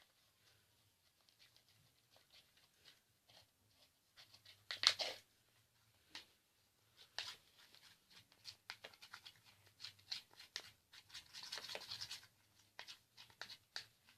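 Spoon scraping and stirring a sticky slime mixture of silicone glue and soap in a bowl: faint, irregular scrapes, with the loudest about five seconds in and a busier stretch around eleven to twelve seconds.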